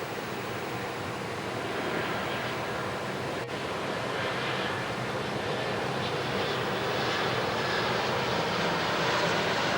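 Engines of an airliner on approach to land, a steady rushing drone that grows slowly louder as the aircraft nears.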